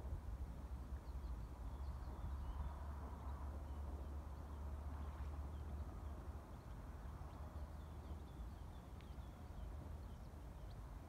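Outdoor ambience: a low, uneven rumble with faint, short bird chirps scattered through it.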